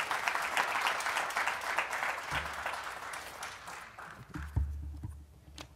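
Audience applause, a dense patter of many hands clapping that dies away after about three and a half seconds. It is followed by a few low thumps.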